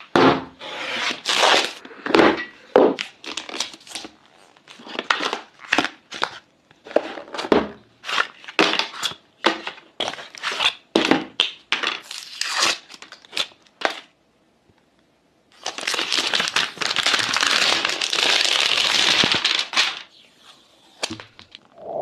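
Tablet packaging being handled and unwrapped: a run of short crinkles, tears and taps from paper and plastic wrappings, then after a short pause one continuous tearing or peeling rustle lasting several seconds.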